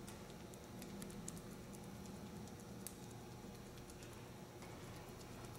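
Faint, scattered light pats and clicks of a brush dabbing resin into fiberglass mat.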